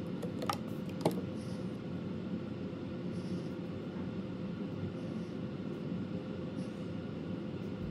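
Cuticle nippers snipping twice, two small sharp clicks about half a second apart near the start, over a steady machine hum.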